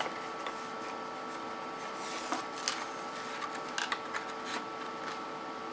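Plastic microfilm reel slid into its cardboard box and the box closed: a few faint, scattered clicks and scrapes of handling. A steady electrical hum runs underneath.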